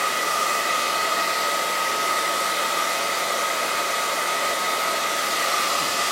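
Handheld hair dryer running steadily, a constant rush of air with a steady whine.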